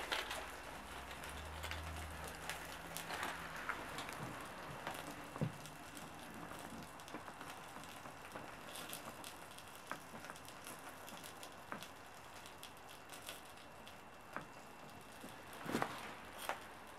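Small wood fire of split logs crackling over burning tinder, with scattered sharp pops and snaps. The loudest pop comes about five seconds in, and a few more come near the end.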